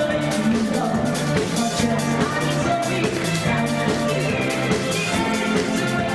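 Live oldies rock and roll band playing, with drum kit, electric bass and electric guitar over a steady drum beat.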